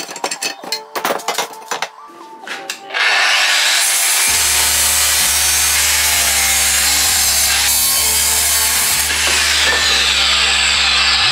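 A few sharp metal clanks as steel parts are handled, then from about three seconds in a Metabo angle grinder cuts into steel with a loud, steady shriek that runs until near the end.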